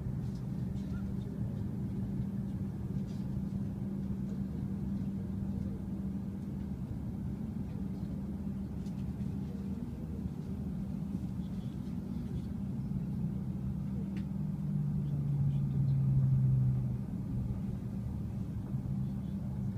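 Cabin noise of a Shinkansen bullet train running into a station: a steady low rumble with a steady hum. A louder low tone swells for a couple of seconds near the end, then drops back.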